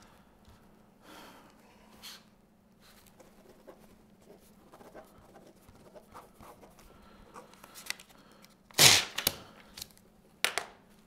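Ballpoint pen scratching faintly on a spiral notepad. About nine seconds in, a page is ripped out of the pad with a loud tear, followed by a shorter sharp rustle of paper.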